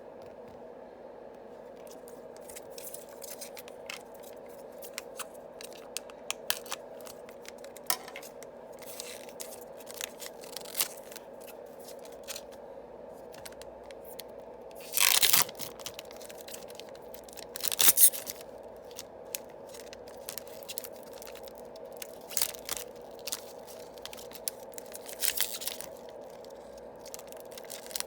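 Yu-Gi-Oh booster packs being torn open by hand and their cards handled, with many small clicks and snaps of card stock. A loud tearing rip comes about halfway through and another about three seconds later, with fainter rips near the end. A faint steady hum runs underneath.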